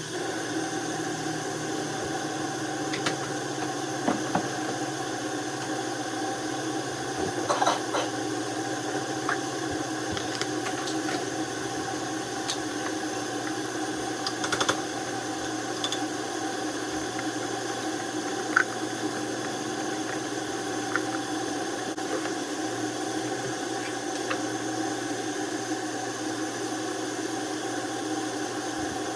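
A steady mechanical hum made of several fixed tones over a noisy bed, with a few light clicks and clinks scattered through it.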